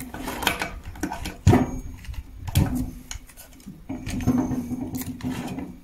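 Two 12-volt mini tyre compressors with steel housings being handled, lifted and set down on a wooden tabletop: a few knocks against the wood, with rustling of their tangled power cables.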